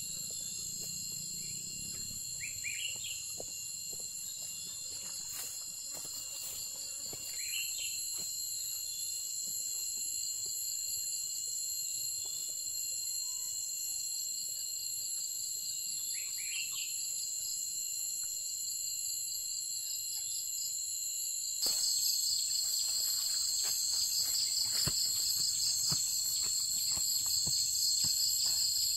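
Steady high-pitched insect chorus with a short falling bird chirp three times. About two-thirds of the way through, the chorus gets louder and takes on a fast pulse. Scattered faint clicks and rustles run underneath.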